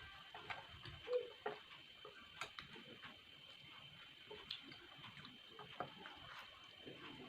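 Soft eating sounds from spicy instant noodles: small clicks and smacks of chewing and utensils, with a faint steady high-pitched whine underneath.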